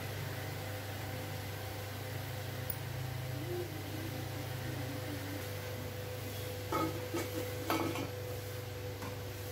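Metal lid being set onto a steamer pan, giving a few clinks and knocks of metal on metal about seven seconds in, over a steady low hum.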